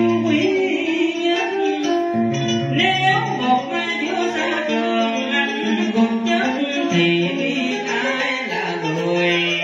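A man singing cải lương (vọng cổ style) into a microphone with long held, wavering notes, over plucked-string accompaniment.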